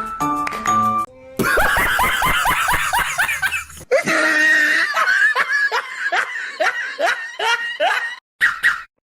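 A short run of musical notes, then two long stretches of quick, high laughter, each laugh syllable dropping in pitch, played as comic sound effects.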